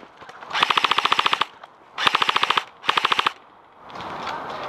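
Airsoft gun firing on full auto in three quick bursts, each a rapid even rattle of shots lasting under a second.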